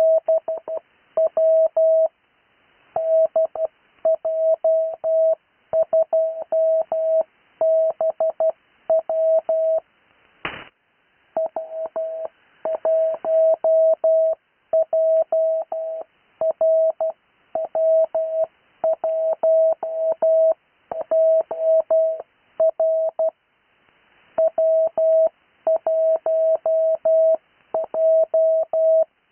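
Morse code on CW: a single steady tone keyed on and off in dots and dashes, spelling out amateur radio callsigns, each sent three times, heard over a radio with light hiss between the characters. There is a brief burst of noise about ten seconds in.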